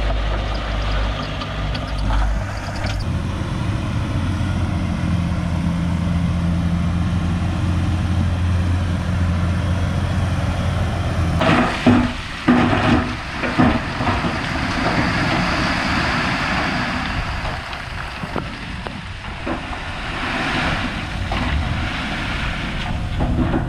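Heavy diesel engine of a construction machine running steadily; about halfway through the steady engine note gives way to a noisier sound with several sharp metallic clanks.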